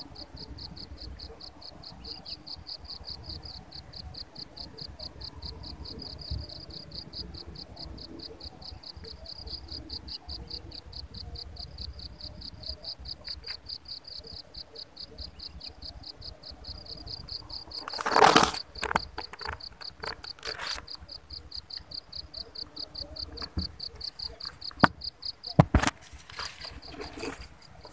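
Insects trilling steadily, a high, fast-pulsing chirp that never lets up. A loud rustle breaks in about two-thirds of the way through, and two sharp knocks come near the end.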